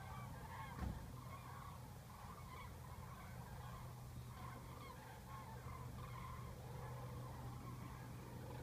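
A large flock of migrating common cranes calling in flight: many faint trumpeting calls overlapping without pause. Beneath them is a low steady hum, with a brief knock about a second in.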